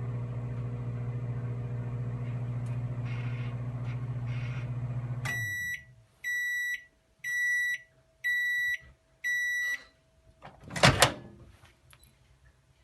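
Microwave oven running with a steady hum that cuts off about five seconds in, followed by five beeps about a second apart signalling the end of the cooking cycle. Near the end comes a single sharp clack as the door latch is released.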